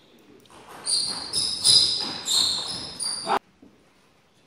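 Table tennis rally: a quick series of about seven sharp clicks of the celluloid ball off bats and table, ringing in a large hall, starting about a second in and stopping abruptly after about two and a half seconds.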